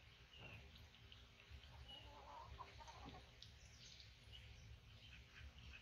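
Near silence: a low background rumble with a few faint, short bird calls.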